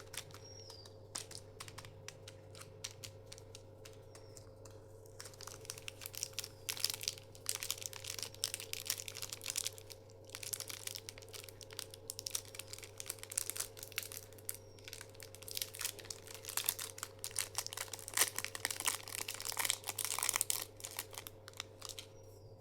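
Chocolate bar wrappers crinkling and tearing as they are unwrapped: scattered crackles at first, then dense crinkling from about five seconds in until just before the end.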